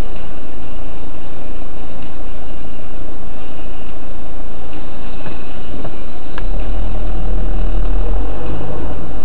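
Car driving along a city street, recorded from inside by a dashcam: loud, rough engine and road noise. About six seconds in a click is heard, and a heavier low rumble sets in.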